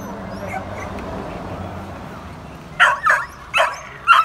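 A dog barking, four short sharp barks in the second half, over a low steady rumble in the first half.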